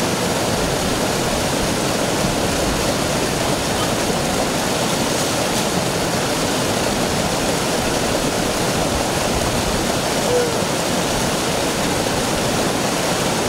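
Shallow mountain stream rushing steadily over rock in a small cascade.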